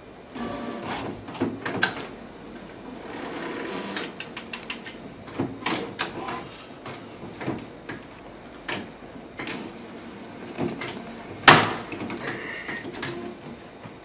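A desktop printer running as it feeds paper, with scattered clicks and knocks throughout and one louder sharp knock about three quarters of the way through.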